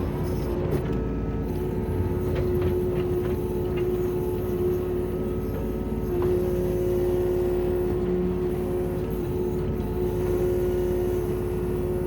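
Kubota U27-4 mini excavator running steadily at working speed, its diesel engine and hydraulics giving an even drone with a steady pitched hum, with a few faint knocks in the first few seconds.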